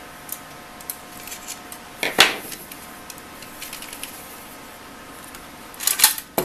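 Hard plastic and metal handling noises from a DVR's case and hard-drive bracket being moved by hand: a single loud knock about two seconds in, a few faint ticks, and a quick cluster of clicks near the end.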